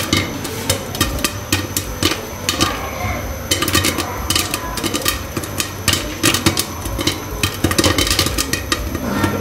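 Butter popcorn kernels popping in a covered stovetop pan with a glass lid: an irregular run of sharp pops over a steady low hum, growing busier after a few seconds. The popping is in full swing, so the corn is not yet done.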